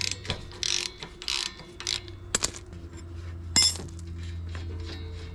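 Socket ratchet wrench undoing the tractor grille's bolts: a run of short ratcheting strokes about half a second apart, then a sharp metal clink.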